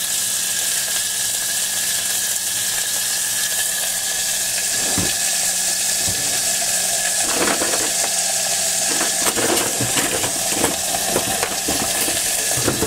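Beef cubes searing in hot vegetable oil in a 1.5-litre Hawkins aluminium pressure cooker pot, sizzling steadily. From about seven seconds in, a series of light metallic clicks comes from the meat being turned with tongs against the pot.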